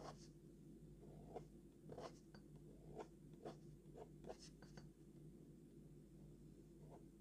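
Fountain pen nib scratching across sketchbook paper in short, irregular strokes as lines are inked in, faint over a low steady hum.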